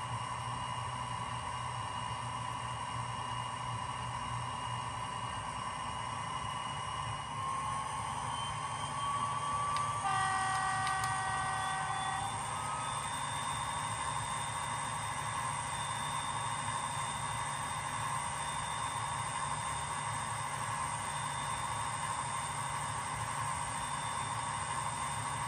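Bachmann Class 57/3 model locomotive's DCC sound decoder playing diesel locomotive engine sound through its small speaker, running steadily. The engine pitch rises a little from about seven seconds in, and a horn sounds for about two seconds some ten seconds in.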